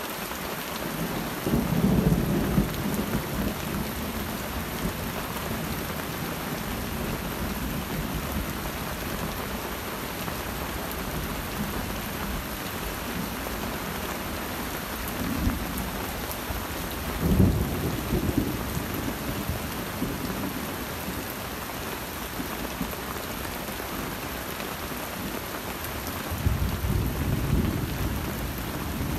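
Steady rain falling through a forest, with three low rolls of thunder: one about two seconds in, a louder one that cracks and rumbles a little past the middle, and another near the end.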